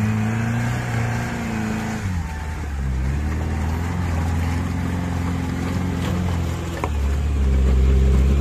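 Off-road 4x4's engine revving up and down under load as it crawls over rough ground, getting louder near the end, with one sharp knock shortly before that.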